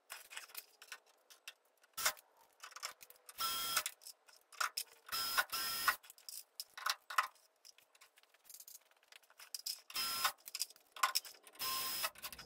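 Cordless drill run in about six short bursts, drilling through the reinforcement ring into the aluminium wing skin of a kit aircraft, with small metallic clicks and handling of clecos between the bursts.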